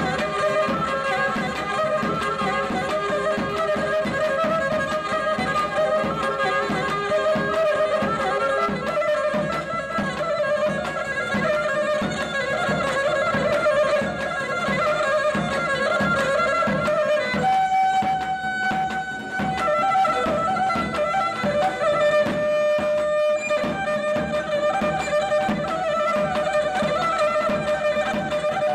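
Pontic lyra (kemençe) playing a fast folk dance tune over the steady beat of a davul (ntaouli) bass drum struck with a stick. The lyra holds one long note about two-thirds of the way through.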